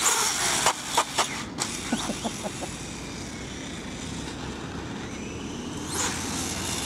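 Electric RC motorcycle (SkyRC Super Rider SR4) with a brushless motor running and its tyres on asphalt, heard as a steady hiss with a few sharp clicks in the first two seconds. It gets louder about six seconds in as the bike is throttled up into a wheelie.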